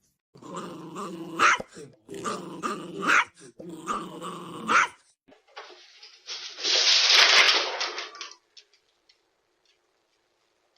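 A dog growling and grumbling in three drawn-out vocal phrases, each rising in pitch at its end. After them comes about two seconds of loud, hissing noise.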